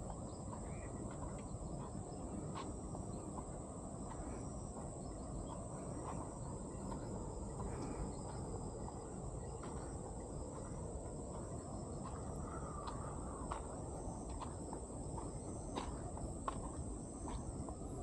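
Outdoor insect ambience: a steady high-pitched drone of crickets over a low rumbling noise, with a few faint scattered bird chirps and clicks.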